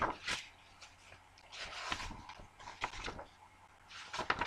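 Rustling and handling noises from a picture book being moved about close to the microphone, in four short bursts.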